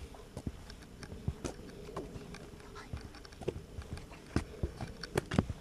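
Footsteps on a hard path, irregular sharp knocks about two to three a second.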